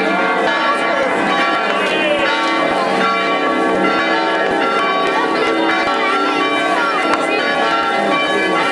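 Church bells ringing, many overlapping tones sounding on together, with voices chattering underneath.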